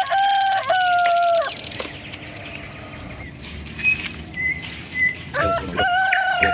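A rooster crowing twice: one long crow held with a step in pitch ends about a second and a half in, and another starts near the end. Between the crows, leaves and twigs rustle as hands search through undergrowth, with a few short bird chirps.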